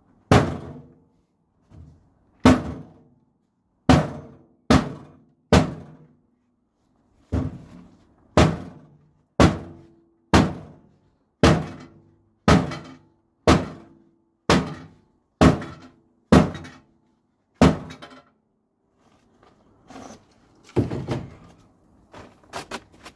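A microwave oven being struck again and again: hard thuds about once a second, some seventeen blows, several leaving a brief metallic ring from the dented casing. Lighter, irregular knocks and rattles near the end.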